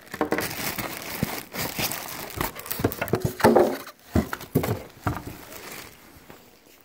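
Clear plastic bag and styrofoam packing crinkling and rustling as a boxed microscope is pulled out of its packaging, with dense crackles for about four seconds before it dies down to quieter handling.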